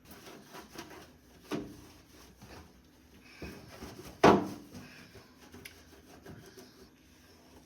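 Sponge scrubbing the inside of a microwave: irregular rubbing with small knocks, and one louder knock about four seconds in.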